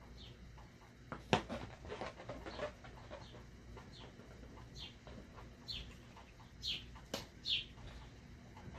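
Short, high, falling squeaks of a rubber balloon rubbed by fingers and a marker tip as it is handled and drawn on, with two sharp knocks, one about a second in and one late on.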